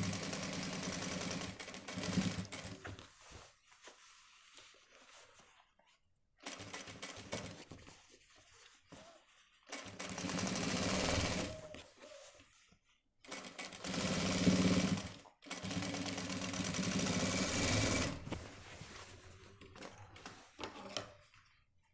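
Single-needle industrial sewing machine running in about five short stitching runs of two to four seconds each, with brief stops between, as a cuff is sewn onto a shirt sleeve. Near the end there are only quieter handling sounds.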